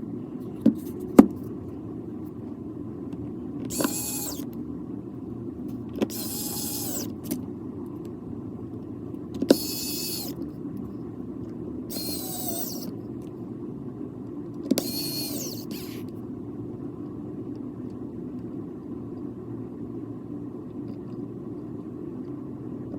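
Small electric precision screwdriver whirring in short bursts, about five times, as it drives the phone's screws back in, with a few sharp clicks of the tool on the phone. A steady low hum sits underneath.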